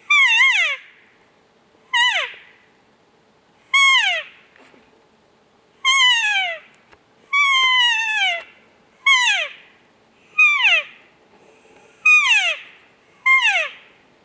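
Nine cow elk mews, one every second and a half to two seconds, each a short whine that wavers briefly and then slides steadily down in pitch; one near the middle is held longer.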